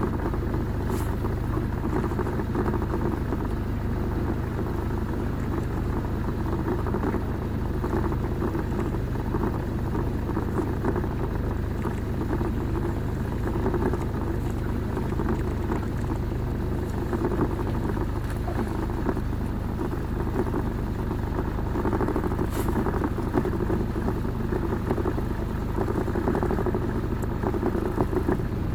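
A steady low rumble, with a couple of faint clicks.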